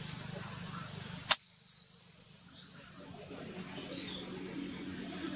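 Forest ambience: a single sharp click about a second in, after which a steady low hum drops away. Short, high bird chirps follow: one loud just after the click, then a few fainter ones.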